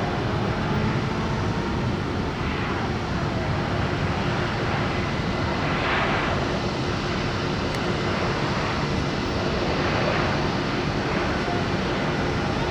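Embraer 195 airliner's twin GE CF34 turbofan engines running, a steady rushing noise with a faint steady whine.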